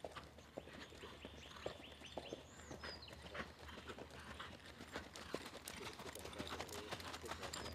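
Faint, irregular hoofbeats of a Pura Raza Española stallion moving under a rider over a sand arena.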